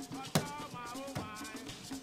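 Cleaver chopping through a raw guinea fowl on a wooden chopping board: one sharp, loud chop about a third of a second in and a lighter one just after a second. Background music with a steady beat plays throughout.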